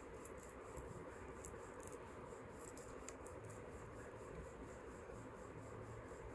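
Faint scattered ticks and rustles of a gold-finish necklace and earrings being handled in the hands, over a steady low hiss.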